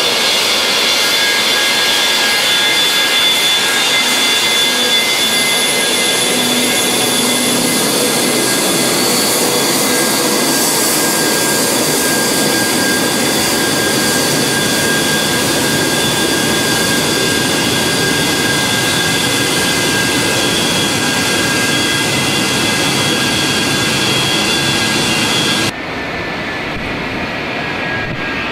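Boeing 737 jet engines at taxi power: a steady high whine with several held tones over a rushing roar. About three seconds before the end it cuts to a quieter, even jet rush from an Airbus A300 accelerating on its take-off roll.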